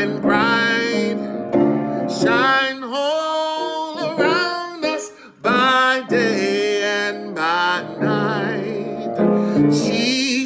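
A man singing a gospel song solo in long, drawn-out ornamented lines with a wavering pitch, over a steady instrumental accompaniment.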